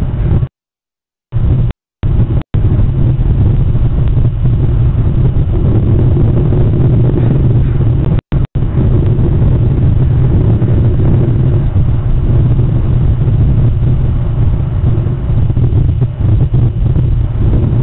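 Steady low rumble of wind buffeting an outdoor camera microphone, cut by brief dropouts to silence near the start and again about eight seconds in.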